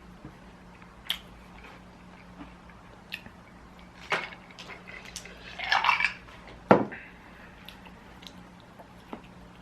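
Tableware clinking and knocking at a meal: a few sharp knocks, the loudest about two-thirds of the way in, with a brief scrape just before it, over a faint steady low hum.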